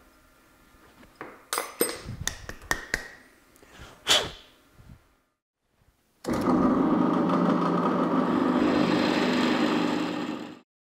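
Light metal clicks and knocks of a lathe chuck key and a small machined steel fitting being handled. Then a pillar drill runs steadily for about four seconds, drilling the fitting for a gas barb, before the sound cuts off near the end.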